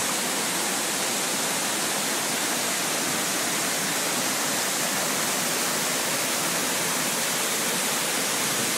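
Waterfall and stream rushing over rocks: a steady, even wash of water noise.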